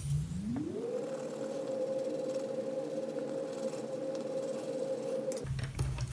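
A steady hum with overtones that glides up in pitch over about the first second, holds steady, then cuts off suddenly near the end. It is the recording's low background hum pitched up as the footage of pencil colouring is fast-forwarded.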